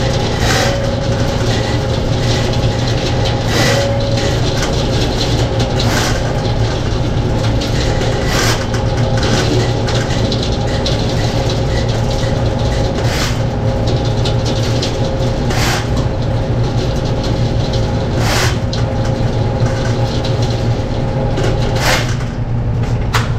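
Electric drain-cleaning machine running steadily, spinning its spiral steel cable down a clogged trench drain line, with a low hum and a sharp clack every two or three seconds.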